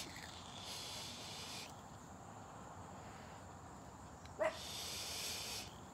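A sub-ohm vape (VooPoo Drag Mini with UForce T2 tank) drawn on with a soft hiss of air through the coil, then a long exhaled breath of vapor, also hissing. About four seconds in there is a short, loud yelp that falls in pitch.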